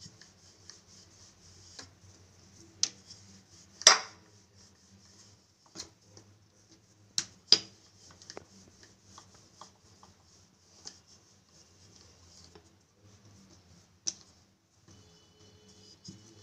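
Wooden rolling pin rolling thin dough on a stone countertop: a steady run of soft rubbing strokes, broken by a few sharp knocks, the loudest about four seconds in.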